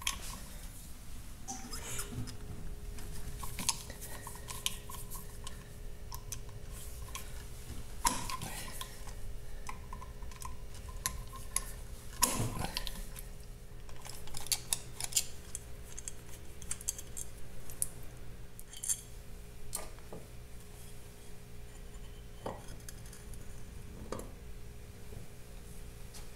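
Metallic clicks and clinks from a screwdriver turning out the slotted screws of a 1951 Vincent Rapide's clutch and the loose metal parts being handled and lifted out. A faint steady hum lies underneath.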